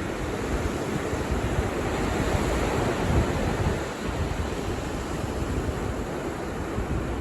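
Ocean surf breaking and washing onto the beach, with wind buffeting the microphone.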